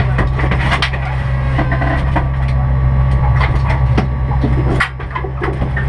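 BMW M3 race car's engine idling, heard from inside the stripped-out cabin, under a string of knocks, clicks and rattles from the driver change in the seat. The engine hum dips a little about five seconds in.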